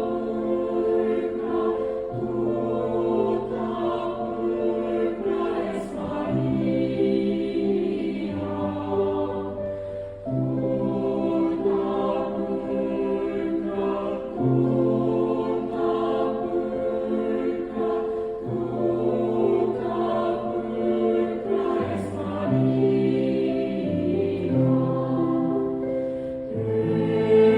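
Mixed youth choir singing a sacred Catholic song in harmony, with held chords and a bass line that moves every couple of seconds.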